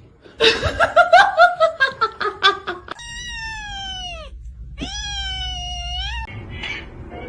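Cats meowing. First comes a wavering, pulsing yowl lasting a couple of seconds. Then, after an abrupt change, two long meows each slide down in pitch.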